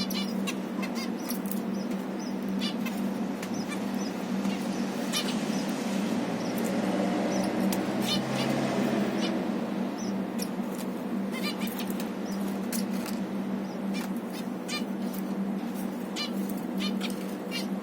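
Pet finches chirping, a scatter of short, sharp, high calls, over a steady low hum.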